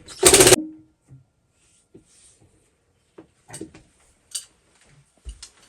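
A short, loud clatter just after the start, then scattered light clicks and knocks as tools and metal fittings are handled during a water heater installation.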